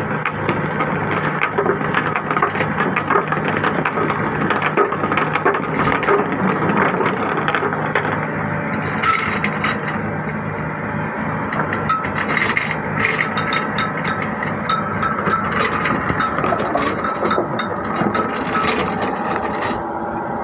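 Squid fishing boat's engine running steadily, with rattling and clanking from the deck winch and rope as the net is hauled in.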